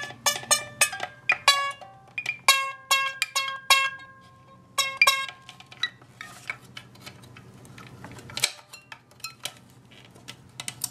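Strings of a 3D-printed plastic banjo ukulele strummed by hand, a run of twangy, untuned chords about two a second for roughly five seconds. After that come scattered clicks and knocks of the plastic instrument being handled.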